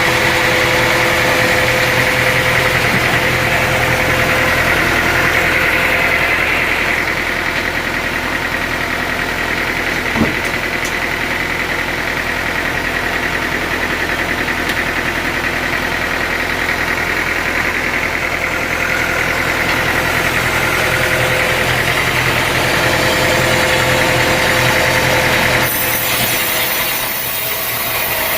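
An engine running steadily at idle, with one sharp knock about ten seconds in. Near the end the low engine hum drops away and a hiss takes over.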